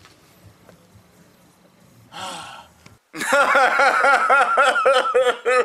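A man laughs loudly in quick repeated bursts, starting a little after halfway, after a short breathy sound.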